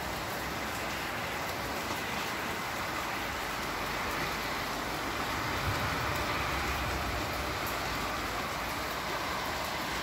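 Rain falling steadily, an even hiss.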